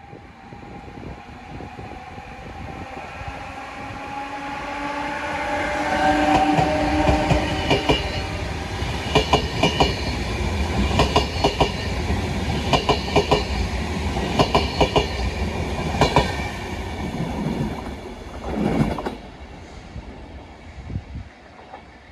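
DSB class EB Siemens Vectron electric locomotive and its coaches passing: a slowly rising electric whine grows louder, then the wheels clatter over rail joints in evenly spaced groups about every second and a half to two seconds, dying away near the end.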